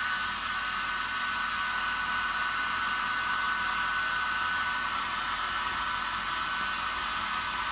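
Handheld hair dryer running steadily, blowing hot air over a vinyl helmet decal to warm its glue; a steady high whine sits over the rush of air.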